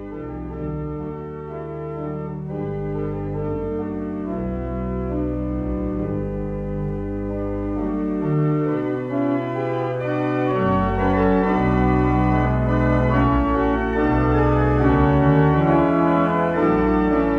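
Pipe organ playing slow, sustained chords over deep bass notes, growing gradually louder.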